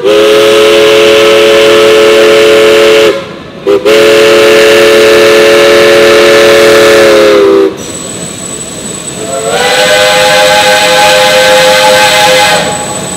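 Three-chime steam whistles of geared steam locomotives. One whistle sounds two long, loud blasts with a short break between them. After a stretch of steam hissing, a second, higher-pitched chime whistle slides up into its chord and holds a long blast.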